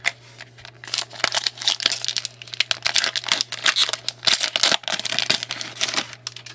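Plastic or foil wrapping crinkling and rustling as trading cards are handled, with many small sharp crackles, from about a second in until near the end.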